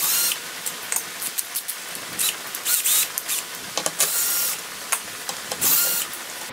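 Small hand-held power screwdriver spinning in short bursts as it backs out small T25 Torx screws, three main bursts in all: one at the start, one about four seconds in and one near the end. Small clicks and taps of the bit and screws come in between.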